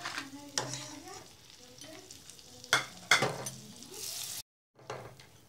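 Butter melting and sizzling faintly in a nonstick pan while a silicone spatula stirs and scrapes it, with a few short scrapes, the loudest about three seconds in. The sound drops out completely for a moment about four and a half seconds in.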